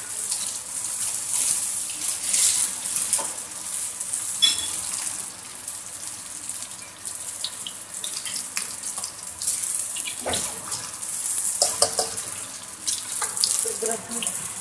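Strips of luncheon meat sizzling in hot oil in a nonstick wok, with scrapes and a few knocks of a spatula as they are stirred, the knocks coming about four seconds in and again around ten to twelve seconds.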